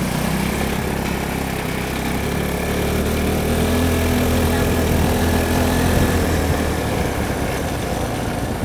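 Small engine of an off-road buggy idling steadily, swelling a little in the middle.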